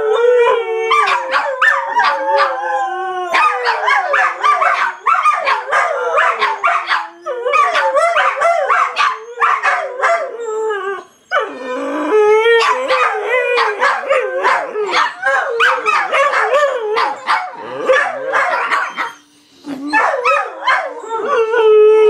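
Several dogs howling together in wavering, overlapping tones, mixed with short barks and yips. The chorus breaks off briefly about halfway through and again near the end.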